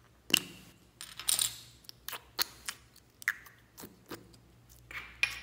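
Small plastic slime jar being handled and its cap worked open: a dozen or so sharp plastic clicks and taps, the loudest about a third of a second in.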